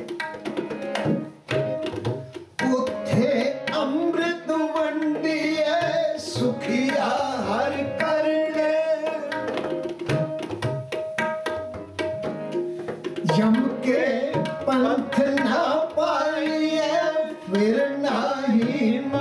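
Kirtan: a man singing a Sikh hymn (shabad) to a harmonium's held chords, with tabla drumming throughout.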